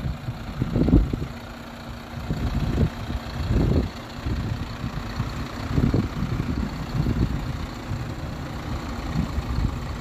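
Iveco Trakker 360 concrete mixer truck's diesel engine idling steadily, with wind buffeting the microphone in uneven low gusts.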